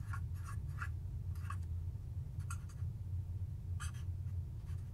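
Marker pen writing, short scratchy strokes in quick little runs with pauses between, over a low steady hum.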